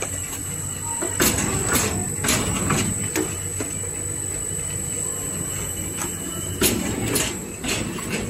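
Toilet paper log rewinder line running: a steady machine hum under a constant high whine. A run of four sharp clacks about half a second apart starts about a second in, and a second run of three comes near the end.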